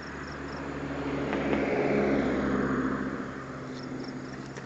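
Hiss from an amateur FM radio receiver tuned to the International Space Station downlink, with no signal coming through between the astronaut's transmissions. The hiss swells about a second in and fades again near the end, over a faint steady low hum.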